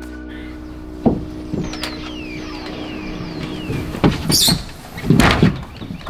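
Knocks and scrapes of a wooden stud-wall frame being racked and shifted on a plywood floor platform, with high squeaks in between. There is a sharp scrape about four seconds in and a heavy clunk about five seconds in.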